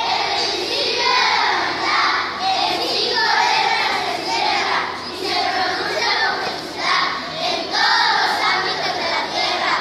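A large group of schoolchildren reciting a Spanish poem aloud in unison, in a sing-song chorus, phrase by phrase with brief pauses between lines.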